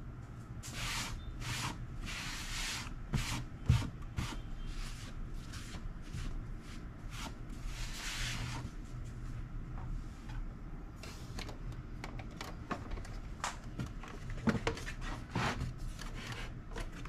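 Hands handling things on a wooden desk organiser: rubbing and sliding noises with scattered light taps and knocks, the loudest a single knock about four seconds in.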